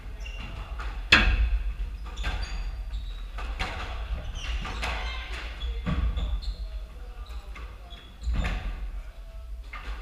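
Squash rally: the hard rubber ball is struck by racquets and smacks off the walls, a sharp crack about every second, echoing around the enclosed court. Sneakers squeak briefly on the hardwood floor in between.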